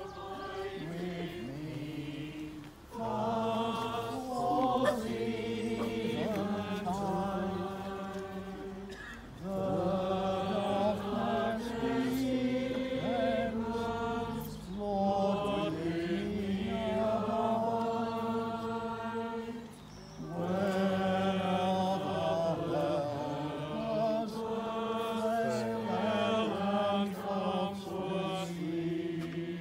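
Church choir and congregation singing together, in long sustained phrases with short breaks between them.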